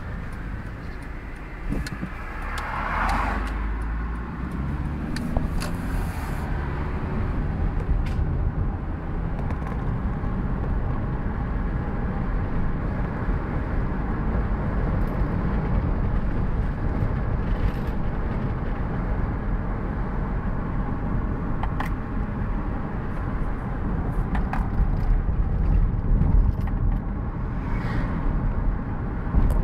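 Car engine and road noise heard from inside the cabin while driving at low speed, a steady low rumble. A brief louder rush comes about three seconds in, and a few small clicks are scattered through.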